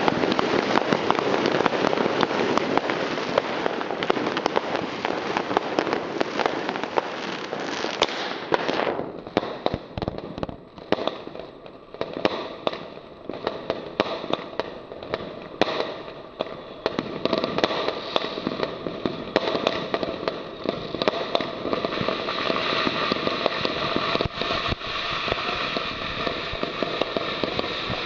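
A 111-shot consumer fireworks cake firing: a dense, continuous rushing hiss for about the first eight seconds, then separate shots and bursts popping at irregular intervals.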